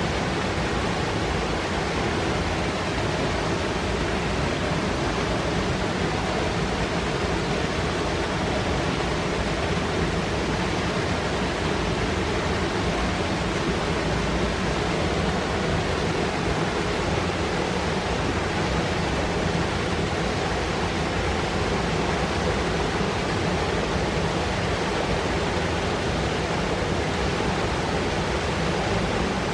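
Fast mountain river rushing over rocks, a steady full roar of churning, foaming water.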